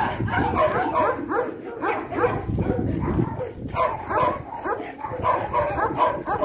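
Several dogs giving short, overlapping yips and barks, several a second without a break.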